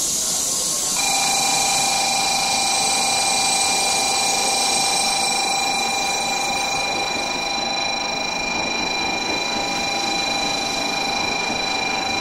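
N700-series Shinkansen train pulling slowly into the platform. A steady high whine of several tones sets in about a second in and holds at one pitch over the running noise.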